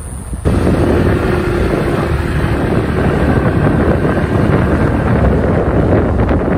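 Loud rushing wind noise on the microphone over a running vehicle, cutting in suddenly about half a second in.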